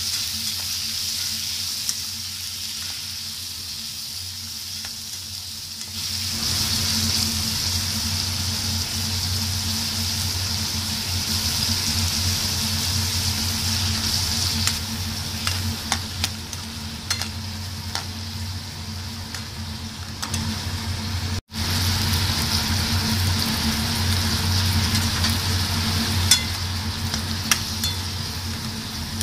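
Tomato wedges, green chillies and garlic sizzling in hot oil in a non-stick kadai while a spatula stirs them, with small scrapes and taps of the spatula against the pan through the second half.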